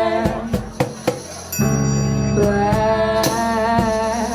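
Live rock band playing: regular drum hits over a steady bass line and long held notes.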